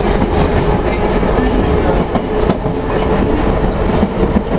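Kyiv metro train running at speed, heard from inside the carriage: a steady rumble of wheels on rail with a thin steady tone over it.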